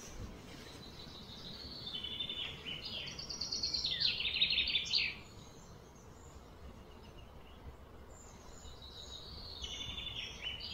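High, rapid pulsed chirring calls from wild animals, building up over a few seconds and cutting off suddenly about five seconds in, then a shorter bout near the end.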